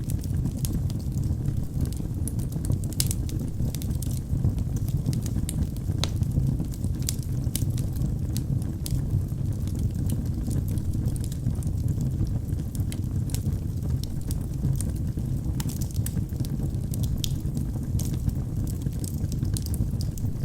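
Wood fire burning in a fireplace: a steady low rumble of flames with frequent, irregular sharp crackles and pops from the burning wood.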